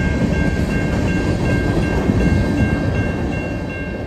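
Freight train's covered hopper cars rolling past close by: a steady, heavy rumble of steel wheels on the rails. Over it a level-crossing bell rings in a steady repeating pattern, about two strokes a second.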